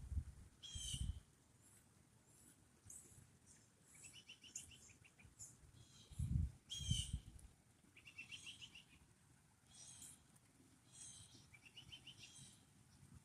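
Songbirds calling repeatedly: short trills of rapid, evenly spaced notes and quick chirps, one every second or so. Low rumbles of wind buffeting the microphone come about a second in and again around six to seven seconds in.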